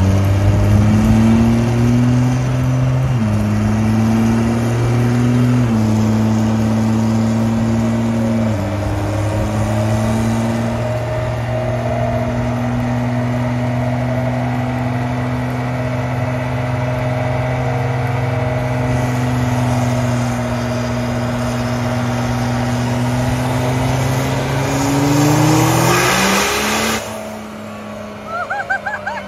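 A Dodge Cummins inline-six turbo-diesel makes a full-throttle chassis-dyno pull on nitrous. The engine note climbs and steps down in pitch three times in the first nine seconds, then holds a long steady note, rises sharply and cuts off suddenly about 27 seconds in as the pull ends.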